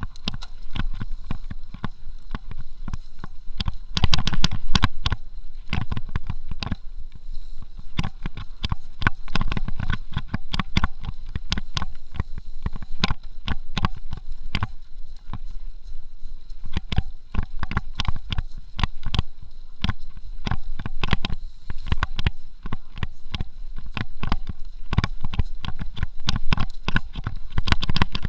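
Mountain bike rattling and clattering as it is ridden fast over a rough dirt trail, a constant run of irregular knocks and jolts over a low rumble, the heaviest jolts about four seconds in.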